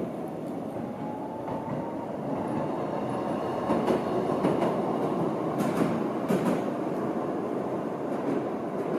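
Toei Arakawa Line streetcar passing at a level crossing: wheels running on the rails with a motor whine that rises in pitch over the first couple of seconds, then several sharp wheel clacks between about four and six and a half seconds in.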